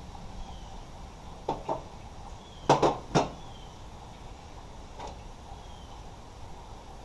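A few sharp knocks and clunks of objects being handled: two light ones about a second and a half in, a louder quick cluster of three about three seconds in, and a faint one near five seconds.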